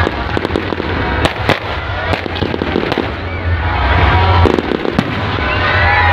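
Fireworks display: aerial shells bursting with repeated sharp bangs and crackle over a constant low rumble.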